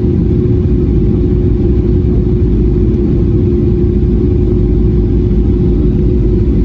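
Steady cabin noise of a Boeing 737-800 jet airliner: a constant low rumble of engine and airflow with a faint steady hum, unchanging throughout.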